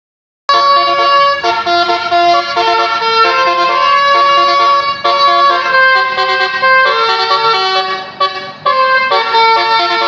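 Tour bus 'telolet basuri' multi-tone musical air horn playing a melody, starting about half a second in. Several horn notes sound together as chords, and the notes step from one pitch to the next.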